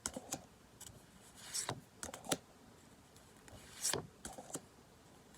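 Pokémon trading cards slid one over another as a freshly opened booster pack is flipped through: short papery swishes and flicks in a few quick clusters.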